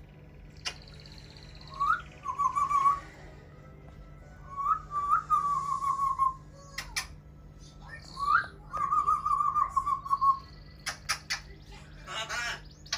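Whistling: three short whistled phrases, each a quick rising note that goes into a wavering, trilled held note. A few sharp clicks fall between them.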